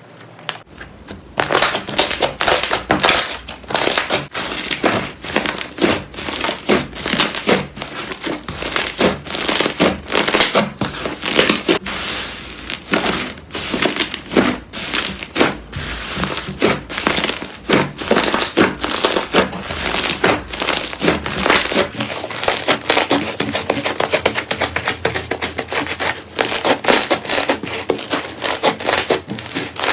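Slime being squished and pressed by hands, giving a dense, irregular run of crackling and popping clicks that starts about a second and a half in.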